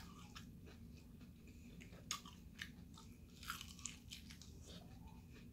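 A person biting and chewing a crispy fried chicken wing: faint, scattered crunches of the fried coating, a few sharper ones around the middle.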